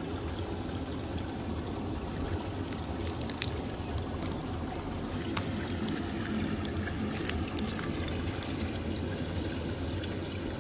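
Hands washing small crabs in a steel pot of water: light sloshing and scattered clicks of shells against the pot, mostly in the middle, over a steady low rumble of wind on the microphone.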